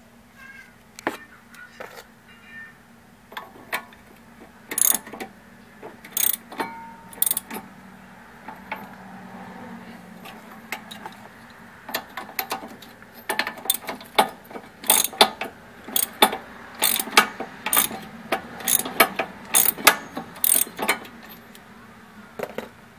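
Ratchet wrench clicking and metal tools clinking while the rear brake caliper bolts are worked loose. Sharp clicks come singly at first, then in quick runs of about two or three a second.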